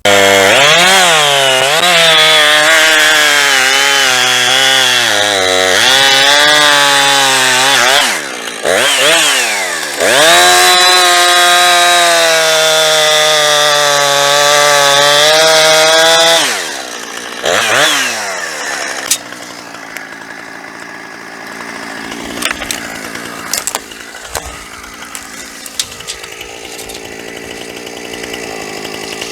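Two-stroke chainsaw limbing and bucking a felled pine. The engine runs at high revs, its pitch sagging under load in the cuts and picking up again between them. About two-thirds of the way in it drops off, gives a short rev, and runs much more quietly after that.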